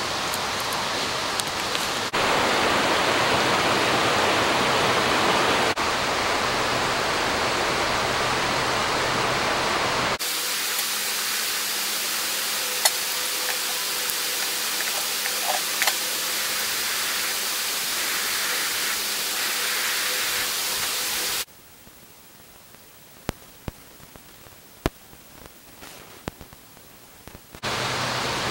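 Steady rushing noise, like wind or running water. It changes abruptly twice, and near the end it drops much quieter for several seconds, with a few faint clicks.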